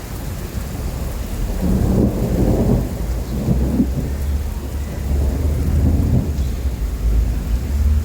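Steady rain with thunder rumbling in swells, loudest about two seconds in and again around six seconds.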